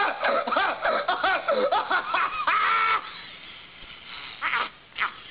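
A high-pitched voice laughing in a quick run of 'ha-ha' bursts, stopping about three seconds in. Two short, fainter sounds follow near the end.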